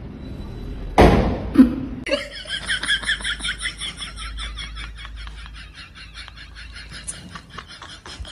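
A sudden loud burst about a second in, then a person laughing in a long run of rapid, evenly spaced 'ha' pulses that slowly fades.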